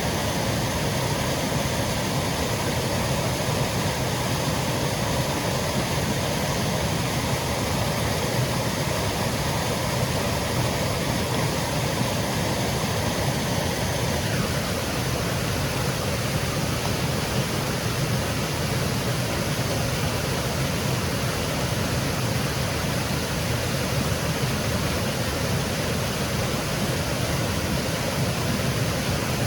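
Small woodland waterfall cascading over rocks, a steady rushing of water at an even level. A faint steady hum sits underneath and stops about halfway through.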